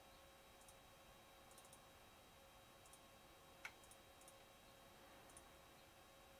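Near silence with a faint steady hum and scattered quiet computer mouse clicks, many in quick pairs, one a little louder about three and a half seconds in.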